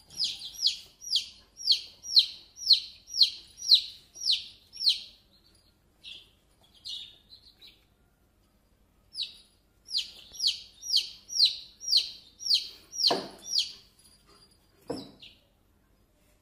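Baby chick peeping: a run of high, falling peeps about two a second, a pause, then a second run. Two short, soft knocks come near the end.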